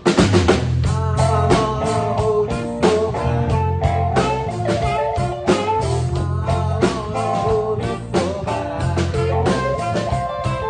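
Live band playing an instrumental passage: drum kit keeping a steady beat under an electric bass line, with saxophones carrying sustained melody notes.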